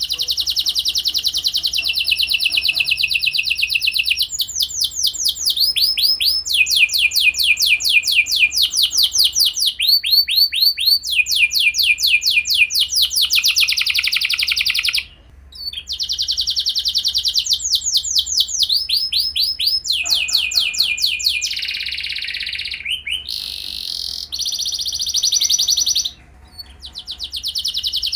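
Domestic canary singing a long, loud song of rapid trills: runs of quickly repeated notes, each run giving way to a different one, with two short pauses, about halfway through and near the end.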